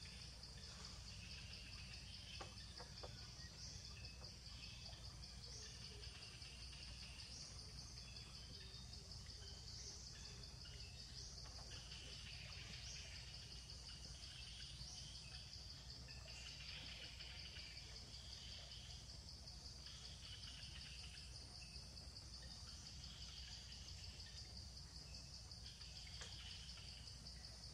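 Faint outdoor ambience: a steady high-pitched insect drone with short chirps repeating every second or two, over low background noise.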